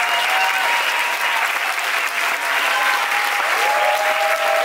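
Audience applauding steadily at the end of a dance, with a few voices calling out over the clapping from about three and a half seconds in.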